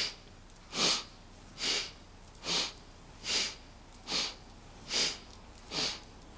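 A woman's strong, rhythmic breathing through the nose during a standing Kundalini yoga twist, one sharp breath with each swing of the torso. The breaths are evenly paced, a little more than one a second.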